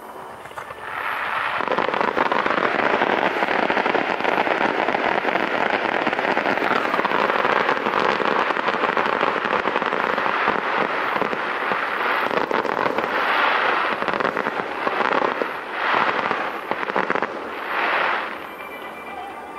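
Fireworks finale: a dense, unbroken barrage of rapid crackling bursts that sets in about a second and a half in. It swells three times near the end and then eases off.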